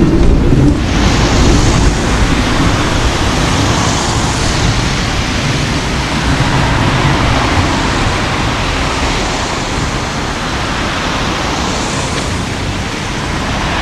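A tram's low running rumble cuts off under a second in and gives way to a steady rushing hiss of street traffic.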